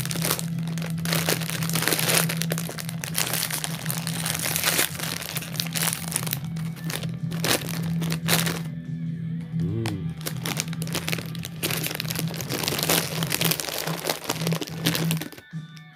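Crinkling plastic snack bag as it is pulled open and handled, then quieter scattered crunches of double-baked bread chips (7 Days Pizzetti) being eaten from about eight seconds in. Background music plays underneath throughout.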